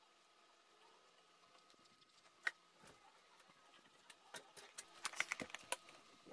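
Small handling noises on a wood-grain laminated board as hands and a hand tool work on it: one sharp click about two and a half seconds in, then a quick run of light clicks and taps near the end as the board is picked up and moved.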